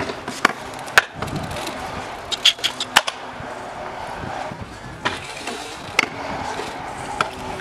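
Stunt scooter wheels rolling on skatepark concrete, with several sharp clacks as the scooter's deck and wheels hit the ground. The loudest clacks come about one second and three seconds in.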